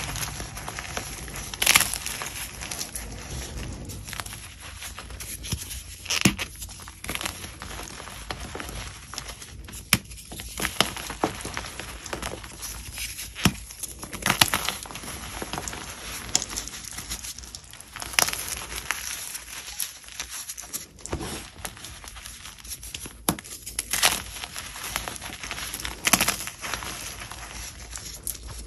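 Pieces of chalk being bitten and chewed close to the microphone: a sharp crunchy snap every two to four seconds over steady crisp, crackly chewing.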